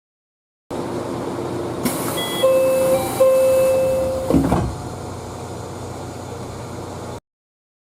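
Electronic door chime on a train: a short tone, a brief higher note, then a held tone of about a second. The sliding doors move with a hiss and shut with a thump about four and a half seconds in, over the steady hum of the stopped train.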